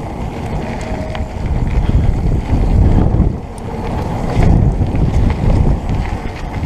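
Mountain bike coasting fast down a gravel single-track trail: wind buffeting the microphone over the rumble of the tyres, coming in surges, with a few small clicks and rattles from the bike.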